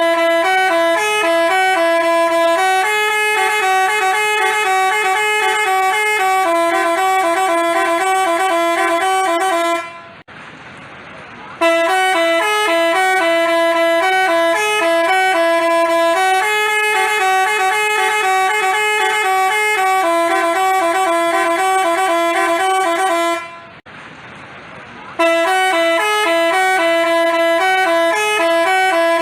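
Telolet basuri multi-tone horn playing a melody of steady notes that step between a few pitches. The tune breaks off twice for about a second and a half, about ten seconds in and again about twenty-four seconds in, then starts again.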